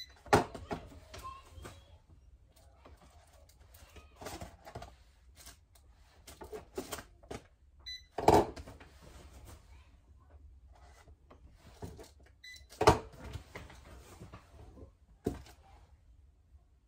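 Irregular clicking and tapping of laptop keys, in short clusters, with a few louder knocks, the loudest about eight and thirteen seconds in.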